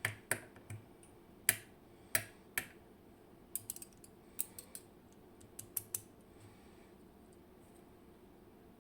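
Small, sharp metal clicks and taps, about fifteen of them, irregularly spaced and bunched in the first six seconds: tiny pins and tools from a WinkHaus KeyTec N-Tra dimple lock cylinder being handled and set down as the lock is taken apart.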